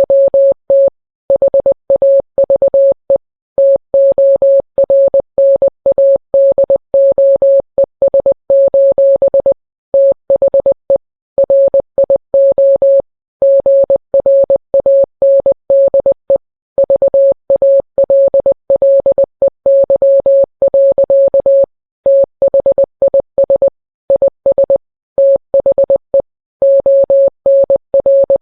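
Morse code sent as a single steady beep tone, keyed on and off in short and long pulses with brief gaps between letters and words. It spells out a mock Emergency Alert System tornado warning.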